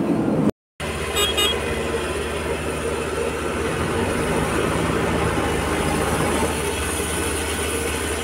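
JCB backhoe loader's diesel engine running steadily as the machine drives. The sound cuts out briefly about half a second in, and two short high toots follow about a second in.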